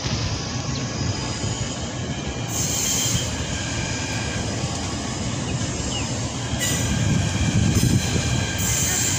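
KRL commuter electric multiple unit rolling slowly past, its wheels rumbling steadily on the rails and growing louder about seven seconds in, with faint wheel squeal.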